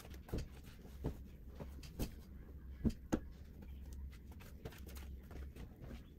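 Pillows being set and patted into place on a bed: scattered soft thumps and fabric handling noises, the two strongest a little after the middle, over a steady low hum.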